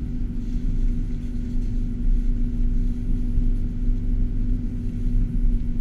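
Car cabin noise while driving on a snow-covered road: a steady low rumble of tyres and running gear under a constant low hum.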